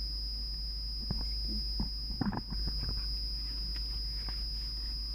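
Food packaging being opened up close: scattered small crinkles and taps, with a short burst of rustling a little over two seconds in. A steady faint high-pitched whine and low electrical hum run underneath.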